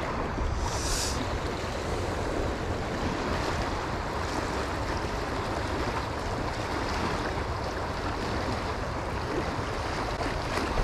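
Fast-flowing shallow river rushing steadily over rocks, with wind on the microphone. A brief high hiss about a second in.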